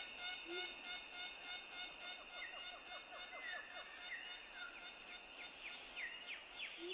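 Rainforest ambience: birds calling in runs of short falling notes, several a second and thicker toward the end, over a steady high hum.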